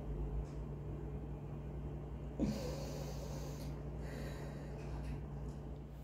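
A woman's forceful breaths during a stomach vacuum exercise: a sharp breath about two and a half seconds in lasts about a second, and a weaker one comes a little later. A steady low hum runs underneath.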